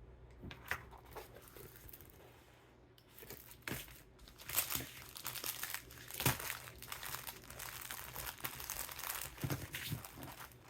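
Packaging crinkling and rustling as it is handled, faint at first and busier from about three seconds in, with a few sharper crackles.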